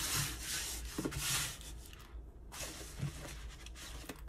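Hands rubbing and sliding over a rolled-up diamond painting canvas, smoothing it flat on a desk. Two strong swishing strokes come in the first second and a half, then quieter handling with a few light taps.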